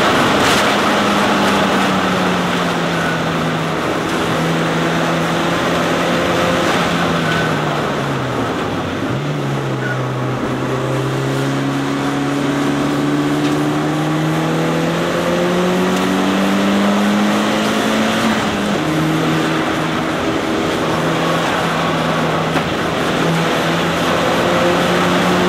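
Mitsubishi Lancer Evolution III's turbocharged four-cylinder engine at speed, heard from inside the cabin over road and wind noise. The revs drop right at the start with an upshift, fall away about eight seconds in as the car slows for a corner, climb steadily under acceleration, drop with another upshift near eighteen seconds and climb again.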